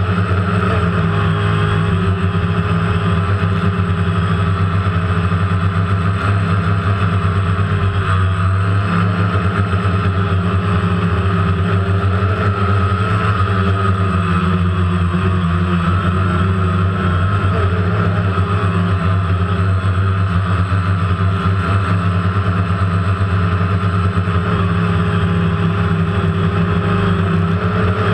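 DJI Phantom quadcopter's electric motors and propellers buzzing steadily in flight, loud and close, with the pitch wavering slightly as the drone adjusts its throttle.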